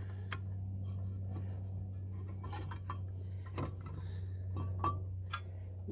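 Scattered light metallic clinks and taps of tools and brake parts being handled and fitted during brake reassembly, over a steady low hum.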